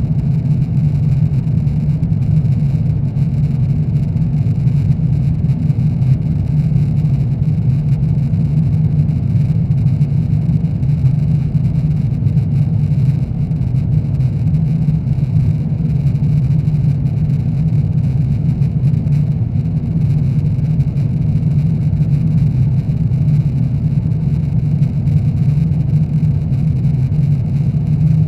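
Cabin noise inside a JAL Airbus A350-900 in flight: a steady low drone of its Rolls-Royce Trent XWB engines and the airflow, unchanging throughout.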